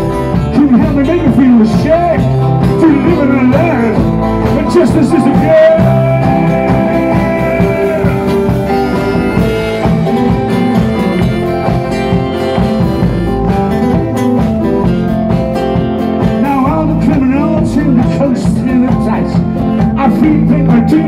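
Live rock band playing an instrumental passage: a harmonica leads over strummed electric guitars, bass guitar and drums.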